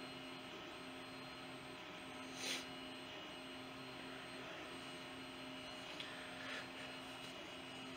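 Quiet room tone: a faint steady electrical hum and whine, with a soft brief rustle about two and a half seconds in and a small click about six seconds in.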